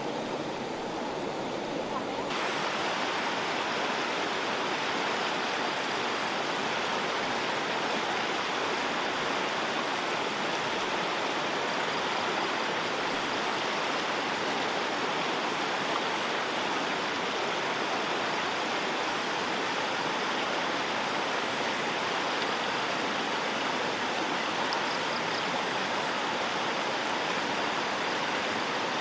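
Steady rushing of a fast-flowing river, changing slightly in character about two seconds in.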